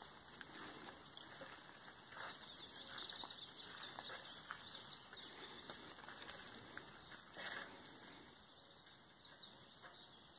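Faint rural outdoor ambience with a short, high chirp from a small creature repeating evenly about twice a second, and a few soft noises now and then.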